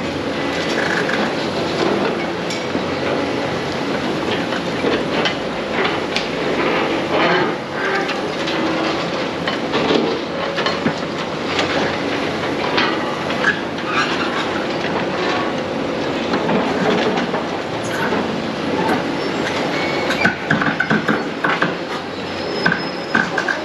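Demolition work on a large building: continuous clanking, scraping and knocking of metal and debris, with occasional faint squeals.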